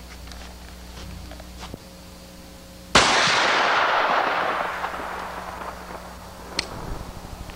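A single shot from a Mech-Tech carbine conversion chambered in .460 Rowland, about three seconds in: a sharp crack followed by a long rolling tail that dies away over about three seconds. A faint tick follows near the end.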